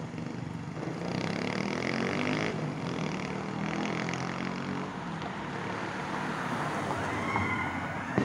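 Street traffic: a motor vehicle engine passing close over general road noise. A single sharp knock comes near the end.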